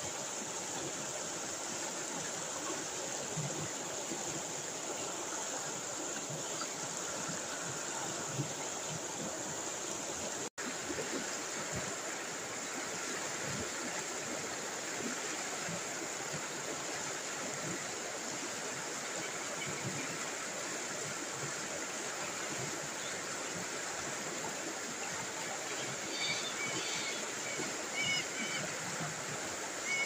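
River rapids: water rushing steadily over rocks in a continuous even rush. The sound cuts out for an instant about ten seconds in.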